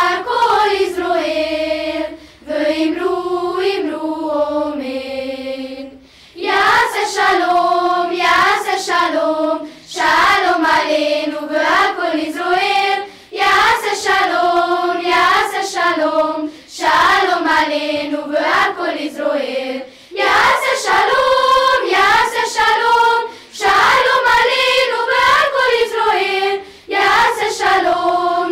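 Children's choir singing, in sung phrases of a few seconds each with short breaks between them.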